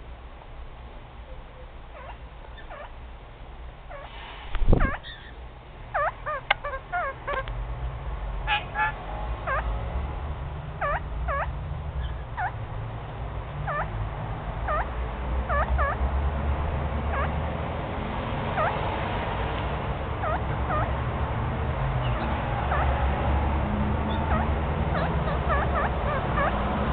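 Kakariki chattering in many short, repeated chirps, with rustling as it rummages inside a fleece jacket pocket. A single sharp knock comes about five seconds in.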